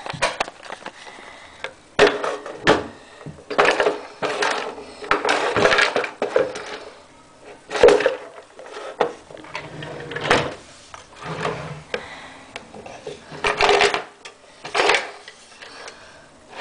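Someone rummaging through things close to the microphone while searching for an item: irregular rustles, knocks and scrapes, starting and stopping at uneven intervals.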